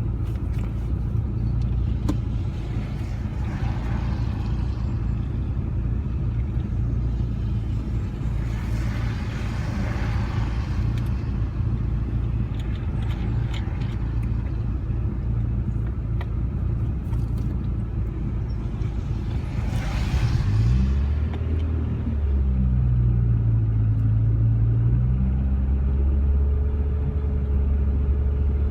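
Rover 45's engine and road noise heard from inside the cabin: a steady low rumble with a few passing swells of rushing noise. About three quarters of the way through, the engine note rises and dips, then holds steady at higher revs.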